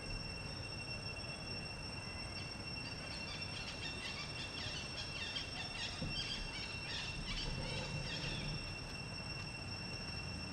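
Outdoor ambience of a steady high-pitched insect drone, with a flurry of short chirps for several seconds in the middle.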